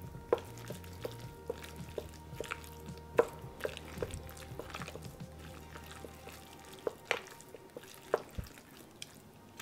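Wooden chopsticks stirring sliced raw chicken in a glass bowl to work in potato starch for velveting: irregular soft clicks and taps against the glass with wet squishing, over faint steady background music.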